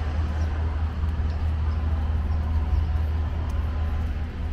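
Outdoor city ambience: a steady low rumble under a general wash of background noise.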